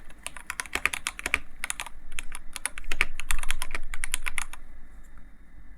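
Typing on an Iqunix F97 mechanical keyboard: a fast, uneven run of key clicks that stops about three-quarters of the way through.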